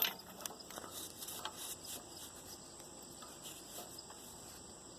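Faint, steady chirping of insects, like crickets, with a few light clicks right at the start.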